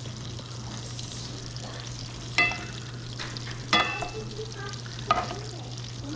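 Steak frying in melted butter with tarragon, a steady sizzle over a low hum. A metal utensil clinks against the pan three times, about a second and a half apart.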